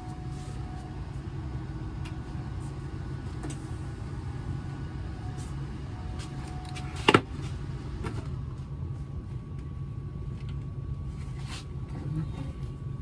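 A locking clamp snaps open about seven seconds in, one sharp metallic click. It sounds over a steady low hum, with a few light knocks near the end as the steel ring is handled.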